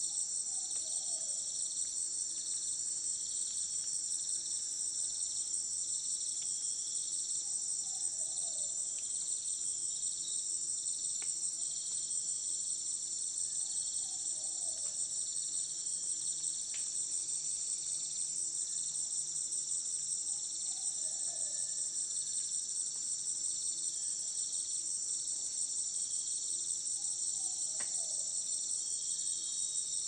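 Night rainforest insect chorus: a steady, dense high-pitched trilling from many insects. A short falling call at a lower pitch repeats about every six and a half seconds, five times in all.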